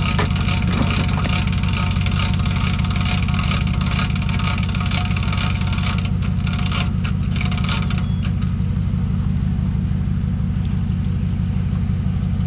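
Pickup truck engine idling steadily, with a few sharp clicks between about six and eight seconds in.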